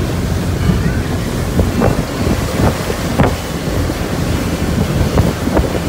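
Wind buffeting the microphone and water rushing past the hull of a 2004 Sea Ray 200 Sport runabout under way at speed, with its wake churning behind and a few sharp splashes now and then.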